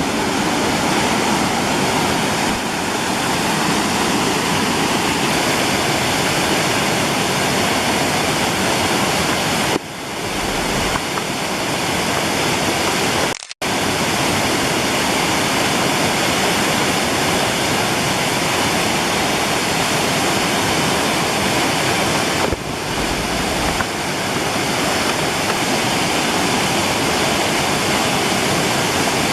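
Waterfall pouring steadily, a dense even rush of falling water. It cuts out for an instant about thirteen seconds in and shifts briefly twice, as at edits.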